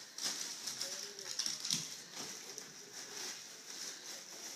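An inflated plastic shopping bag crinkling and crackling as a puppy pushes and bites at it.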